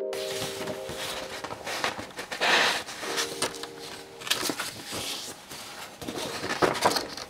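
Loose sheets of drawing paper rustling and sliding as they are leafed through and lifted, with louder rustles about two and a half seconds in and again near the end.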